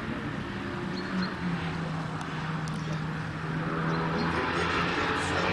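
Engine of a small pickup-bodied microcar driving along the track toward the listener: a steady low drone that grows louder and rises slightly in pitch near the end.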